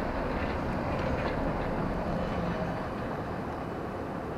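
City tram rolling past close by, a steady rumble of its running gear that swells about a second in and then eases as it goes by.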